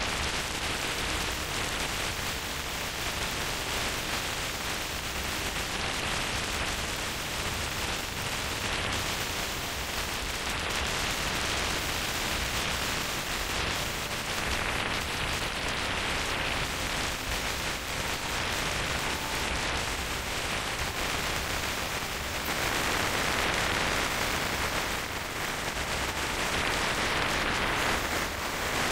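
Very strong mountain wind, reported at 60 to 70 mph, blasting across the microphone as a continuous rush of noise. It grows louder for the last several seconds.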